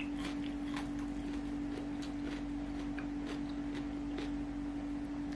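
Eating sounds of fried rice eaten by hand: scattered soft clicks and smacks of chewing and of fingers gathering rice. A steady low hum runs underneath.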